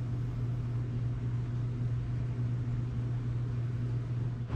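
Steady low machine hum over an even hiss, unchanging throughout, with no distinct knocks or pours.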